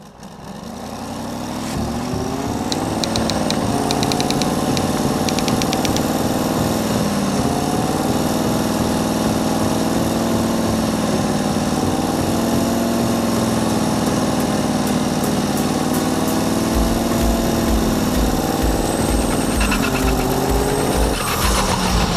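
Turbocharged diesel engine of a Scania drag-racing truck held at high revs, its pitch rising and dipping, during a tyre-smoking burnout. A regular low thumping joins in over the last few seconds.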